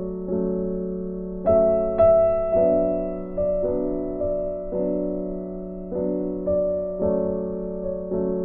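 Soft instrumental piano music: slow, gentle chords, each struck and left to fade before the next.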